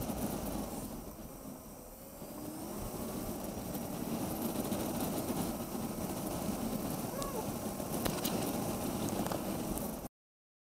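Motorcycle engine running under wind noise on a bike-mounted camera. It eases off about a second in, then picks up again with a rising pitch. Near the end the sound cuts off abruptly.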